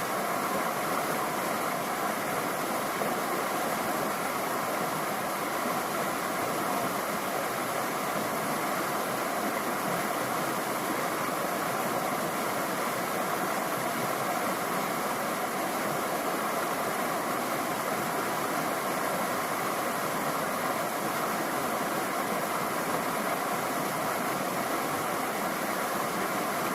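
Steady rushing of flowing creek water, even and unbroken.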